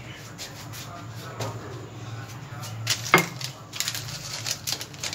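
Kitchen containers and utensils being handled: soft clicks, a sharper knock about three seconds in, then a quick run of small clicks and rustles, over a low steady hum.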